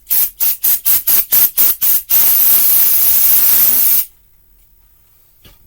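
Aerosol can of brake cleaner spraying: a quick run of short spurts, about four a second, then one steady spray of about two seconds that cuts off suddenly.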